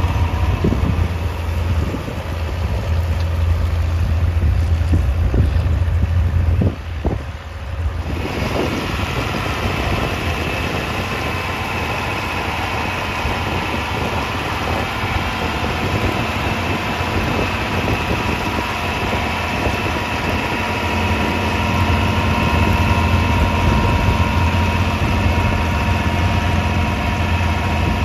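1967 John Deere 4020 tractor engine running steadily while pulling a plow, a constant low drone. The sound dips briefly about seven seconds in.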